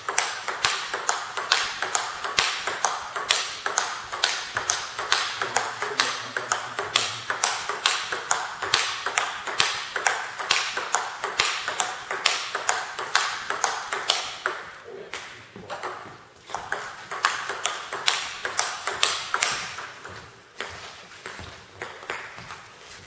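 Table tennis rally: the ball clicking in quick alternation off the bats and the table, about two to three hits a second, with a couple of short breaks between points.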